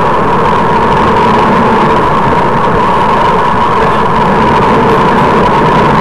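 Loud, steady wind and road noise on a bicycle-mounted camera riding along at speed, with a constant hum.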